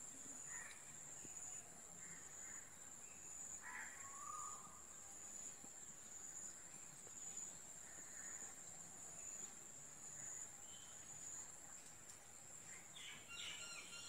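Faint outdoor ambience: a steady high-pitched insect drone, with a few faint bird chirps and a quick flurry of chirps near the end.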